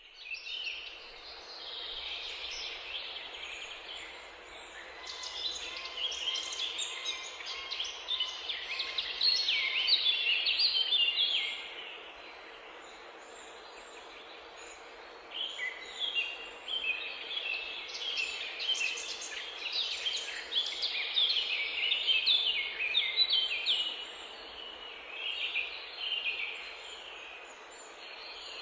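Birds singing: rapid, high chirping phrases that come in two long, busy bouts, over a faint steady hum.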